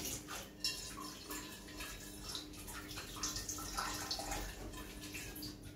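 Faint kitchen work sounds: soft watery trickling with scattered small clicks and clinks.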